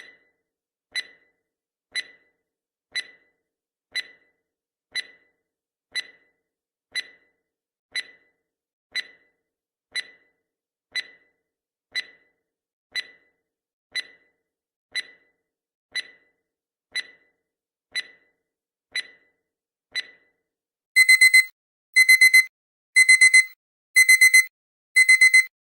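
Countdown timer sound effect: a clock ticks once a second for about twenty seconds as the time runs down. At zero a loud alarm clock starts, rapid beeps in short bursts about once a second.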